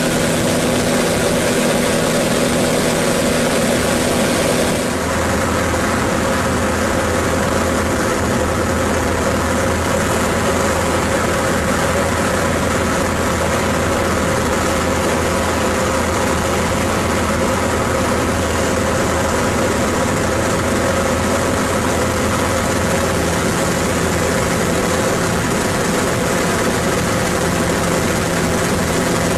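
Pitts Special biplane's piston engine and propeller running steadily, heard from inside the cockpit. The engine's tone changes abruptly about five seconds in.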